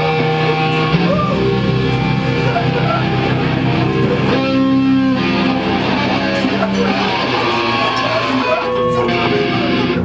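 Heavy metal band playing loud, steady electric guitar and bass, with held notes changing every second or so.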